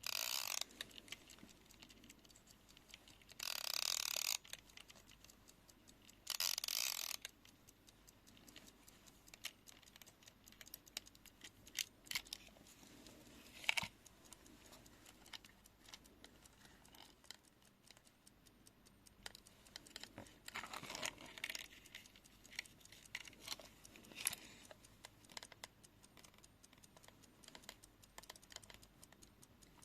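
Europa wind-up folding travel alarm clock sounding in three short bursts, each under a second long, in the first seven seconds. After that come scattered faint clicks and small mechanical sounds from the clock's mechanism and case, with one sharper click about halfway.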